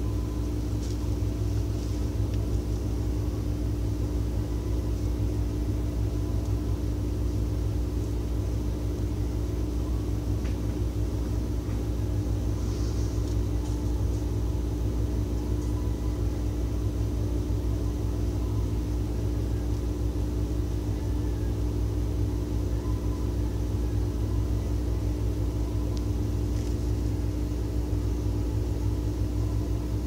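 Steady low rumble with a constant droning hum of machinery.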